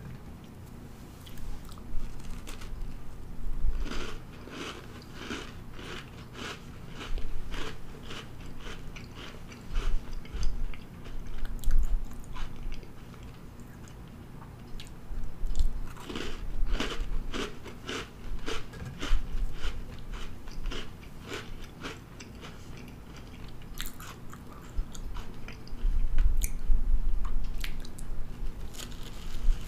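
Close-miked biting and chewing of baked Pillsbury Cinnamon Toast Crunch cookies: crunchy crackling chews that come in several bursts with short pauses between.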